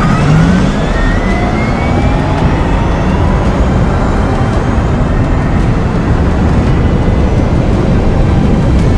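Electric sports car driving fast: a rising motor whine in the first two seconds over loud, steady road and wind rush.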